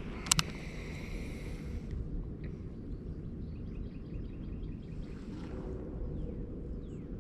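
Open-air ambience from a kayak on the water: a steady low rumble of wind and water noise, with a sharp double click about a third of a second in and a run of faint high chirps a few seconds later.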